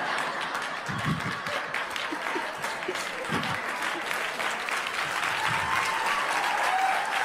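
Audience applauding and laughing in response to a punchline: a steady spread of many hands clapping, with a few laughs mixed in.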